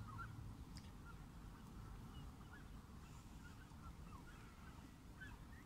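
Faint, distant birds calling, many short calls overlapping, over a low background rumble.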